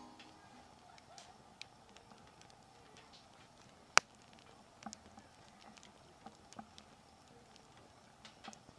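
Faint, scattered small clicks and taps, with one sharp crack about four seconds in.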